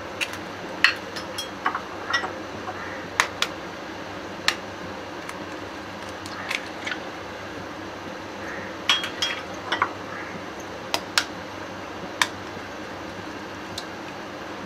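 Eggs tapped with a metal spoon to crack the shells and opened over a glass bowl: a series of sharp, irregular clicks and taps over a steady low hiss.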